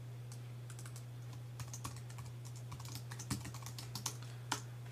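Typing on a computer keyboard: a quick, irregular run of light key clicks, thickest in the middle, over a steady low hum.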